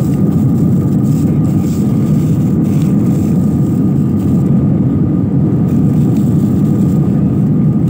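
Jet airliner cabin noise during climb: the engines and rushing air make a loud, steady, deep roar with a faint steady higher hum above it.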